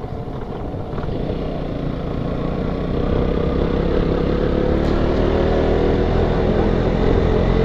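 Single-cylinder engine of a KTM Duke 125 motorcycle running under way, with a steady rush of wind and road noise; about three seconds in the engine note comes up clearly and the overall sound grows gradually louder as the bike picks up speed.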